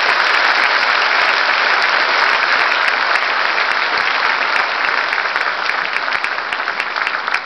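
Audience applauding: dense, steady clapping that welcomes a performer onto the stage, easing slightly near the end.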